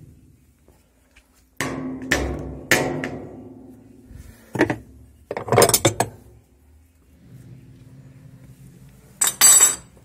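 Hammer blows on a metal spanner wrench, tightening the tub's retaining nut in an Easy 15 kg washing machine until it reaches its stop. The blows come singly and in a quick cluster, about nine in all, some ringing briefly.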